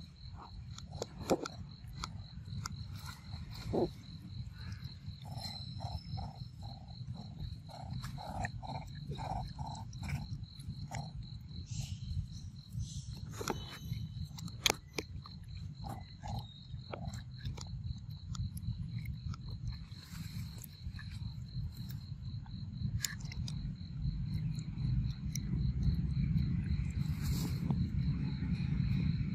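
A macaque biting and chewing a mango, sharp clicks of the bites scattered over a steady low rumble that grows louder near the end. A thin high steady tone runs underneath, and a quick run of short repeated notes comes about five seconds in.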